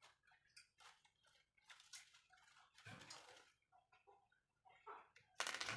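Near silence: room tone with faint scattered clicks and rustles, and a brief louder rustle near the end.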